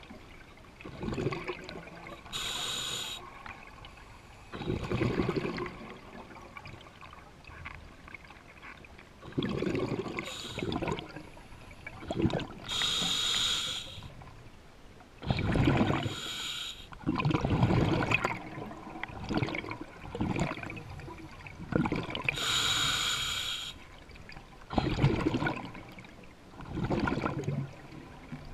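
A scuba diver breathing underwater through a regulator: three hissing inhales about ten seconds apart, with bubbling bursts of exhaled air between them.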